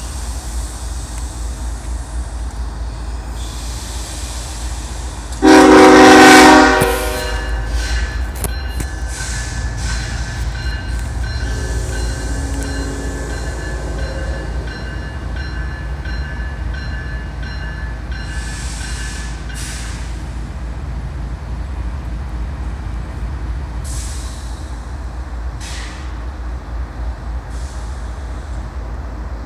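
Air horn of a CSX freight locomotive (GE ES44AH) on an approaching train: one loud blast beginning about five seconds in and lasting over a second, then fainter high tones that fade out about twenty seconds in. A steady low rumble runs underneath.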